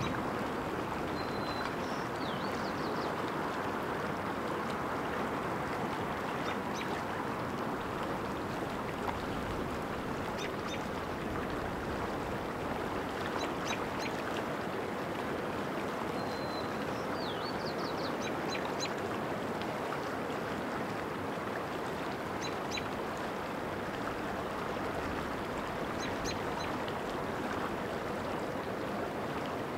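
Steady rush of flowing water, with high, thin bird chirps and short calls every few seconds, including a quick run of chirps around the middle.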